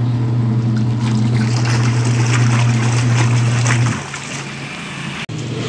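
Twin-tub washing machine running its wash cycle: a steady motor hum with the agitator churning soapy water and a curtain. The hum stops about four seconds in, leaving the water sloshing.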